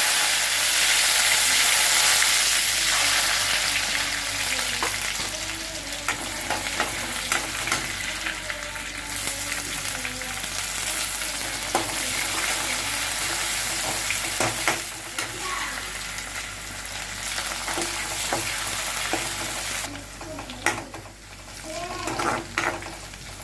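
Food sizzling in hot oil in a pan while a spatula stirs it, with frequent scraping and tapping against the pan. The sizzle is loudest in the first few seconds and eases later.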